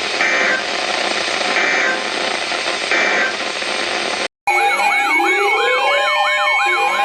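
Weather-radio static hiss with three short data bursts about a second and a half apart: the EAS end-of-message signal closing the alert. It cuts off suddenly, and several overlapping siren tones begin, wailing up and down over steady pulsing beeps.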